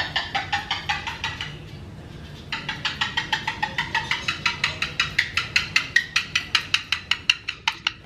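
Moluccan cockatoo making a rapid run of clicking sounds, about six a second, with a short lull about two seconds in before the clicks resume more evenly.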